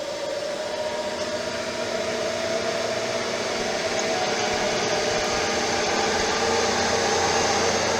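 Cincinnati Milacron Model DR centerless grinder running: a steady mechanical hum and whine from its wheel drives and hydraulics, with several held tones. It grows gradually a little louder.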